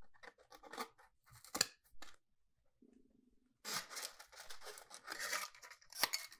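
Craft knife blades cutting and scraping XPS insulation foam: a few short scratching strokes, a pause, then a longer stretch of dense scratchy cutting.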